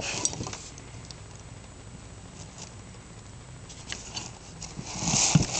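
Quiet handling noise: faint rustles and small clicks as toys and cloth are moved about, with a louder rustle near the end.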